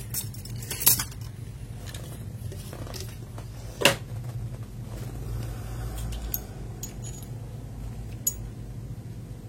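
Small hard plastic clicks and taps from handling mechanical keyboard switches: a few sharp clicks, the loudest about four seconds in, over a low steady hum.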